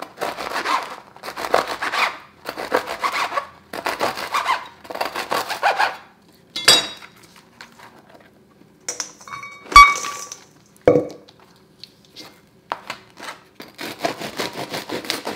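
Serrated bread knife sawing through crusty bread rolls on a plastic cutting board, rasping strokes about twice a second. Midway there are a few knocks and one sharp, briefly ringing clank, from the bread cubes being gathered into a metal bowl, then the sawing starts again near the end.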